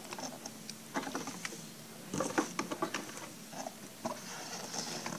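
Scattered small clicks and rustles of an RC car's cardboard box and plastic packaging being handled on a table, in short clusters about a second in and again between two and three seconds in.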